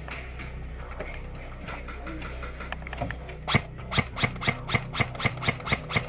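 Airsoft electric rifle fired semi-auto: about ten sharp shots at roughly four a second, starting about three and a half seconds in.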